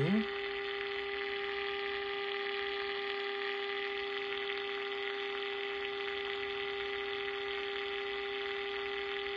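Hoffman Solar BP-709XS transistor radio's speaker playing a steady 400 Hz test tone with its overtones over background hiss. This is the audio from a 455 kHz IF signal modulated at 400 Hz passing through the radio during IF alignment.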